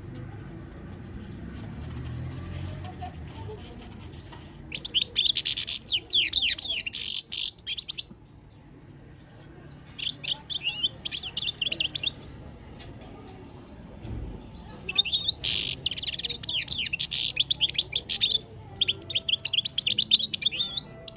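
European goldfinch singing in four bursts of fast, high twittering and trills, with short pauses between them.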